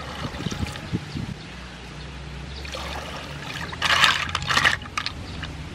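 Water poured from a plastic jug over sea snails in a metal pot, trickling steadily. About four seconds in, a hand mixes the snails and the shells clatter loudly for about a second.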